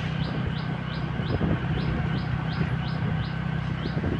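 Scooter engine running at riding speed, with wind and road noise, while a short high chirp repeats evenly about three times a second.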